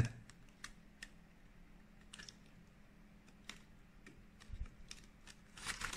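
Faint, irregular small clicks and ticks as fingers handle a flat ribbon print head cable and press it into its connector on the printer's carriage board.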